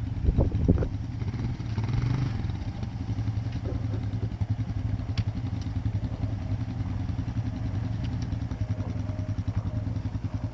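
Off-road vehicle engine idling steadily close by, with an even, fast pulsing beat. A few sharp knocks come in the first second.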